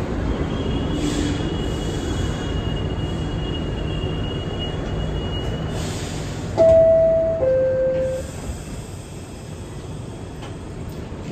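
R62 subway car running with a high, steady squeal over the rumble of the train. About six and a half seconds in, the two-note descending door chime sounds (ding-dong), the signal that the doors are about to close.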